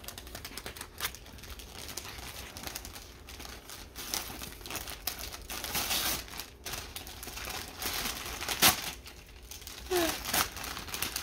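Wrapping paper crinkling and tearing as a gift is unwrapped, in irregular rustles and rips, with one sharper, louder crackle about two-thirds of the way in.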